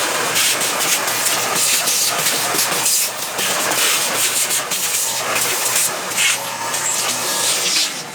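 Dremel rotary tool grinding plastic, a steady, loud hissing grind that stops near the end.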